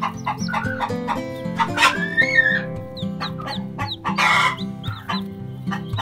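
Newly hatched chicks peeping in quick short chirps while the mother hen calls, over background music with steady held notes. A longer, rising-and-falling call comes about two seconds in, and a harsh, noisy call just after four seconds.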